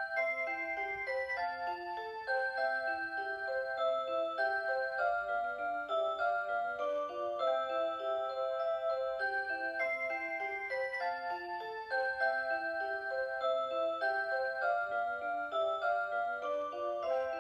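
Rhythm Aria Cantabile melody alarm clock playing an electronic melody in several parts from its Aurora Sound chip, with a bass line under the tune; the phrase starts over about ten seconds in.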